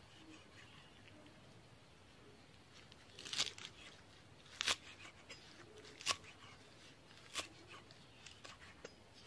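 Kitchen knife chopping Chinese celery on a wooden chopping board. A short cluster of cuts comes about three seconds in, then slow, evenly spaced single chops, and a few lighter taps near the end.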